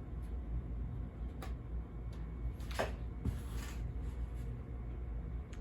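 Casablanca Stealth ceiling fan running on its lowest speed: a quiet, steady low hum. A few faint clicks and one brief falling swish come about three seconds in.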